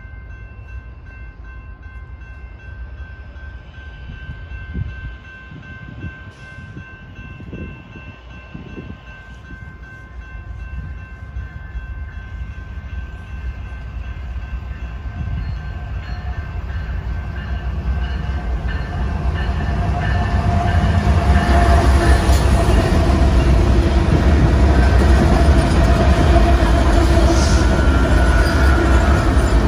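BNSF intermodal freight train approaching behind its diesel locomotives. The low engine rumble grows steadily louder for about twenty seconds and is at full loudness as the locomotives draw alongside near the end.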